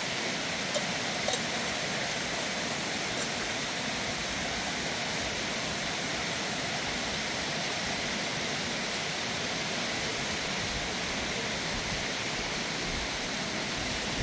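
A steady, even rushing noise, with two faint clicks in the first second and a half.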